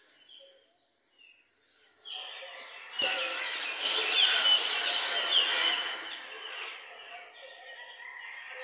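Many small birds chirping together: faint at first, much louder from about two seconds in, with a single sharp click about three seconds in.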